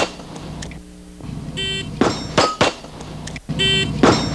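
Electronic shot timer beeps, and a fraction of a second later a pistol fires two fast shots: a draw and first shot timed against the buzzer. The beep-and-shots sequence comes twice.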